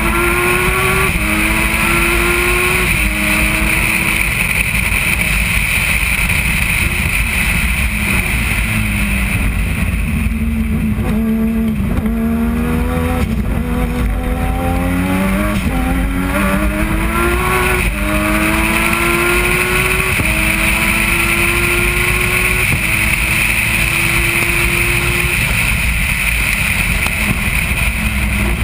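Turbocharged three-rotor Mazda rotary engine of a Tranzam race car, heard onboard under hard racing on 1 bar of boost: revs climb and drop back in steps through several quick upshifts, fall away under braking and downshifts about eight to twelve seconds in, then climb again through another run of upshifts.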